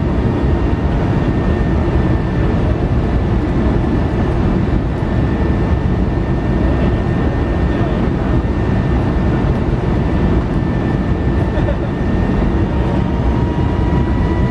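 Airbus A320 cabin noise with the jet engines running: a steady deep rumble of engine and airflow with a thin whine on top that rises slightly near the end.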